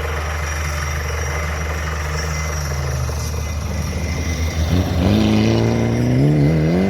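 Rally car engine, a steady low rumble at first, then from about five seconds in growing loud and rising in pitch as the car accelerates.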